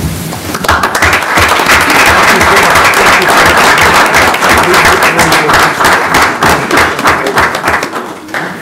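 Applause: many people clapping together, swelling about half a second in, holding steady and dying away near the end.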